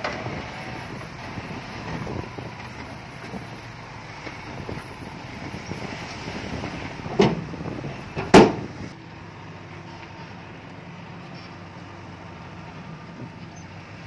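Heavy construction machinery running, with two loud bangs a little over a second apart about halfway through. After that the engine noise drops to a quieter, steady drone.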